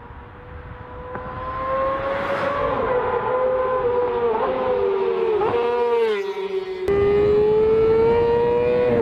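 Yamaha motorcycle engine at high revs, a high-pitched whine that grows louder over the first couple of seconds and climbs slowly in pitch. Its pitch drops sharply a few times about halfway through, like gear changes, then it cuts abruptly to a steady high pitch near the end.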